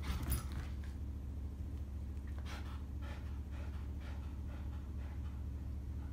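Small dogs in a hallway: a short scuffle of paws at the start as one dog dashes across, then soft, even panting about two to three breaths a second, over a steady low hum.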